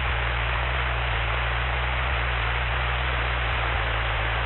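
Steady hiss with a low hum underneath on the separately recorded cockpit intercom audio of a Cessna 172, with nobody talking.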